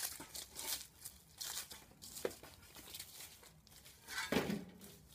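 Rustling, crinkling handling noise close to the microphone, with scattered knocks and one louder knock about four seconds in.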